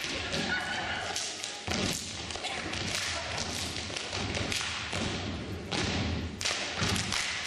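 A group of performers stamping their feet and clapping on a wooden stage, a dense run of thuds and claps in a step routine.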